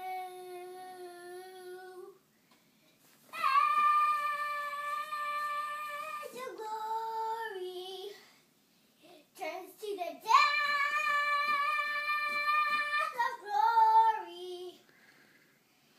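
A child singing long held notes in several phrases with short pauses between them, the strongest phrases starting about three seconds and ten seconds in.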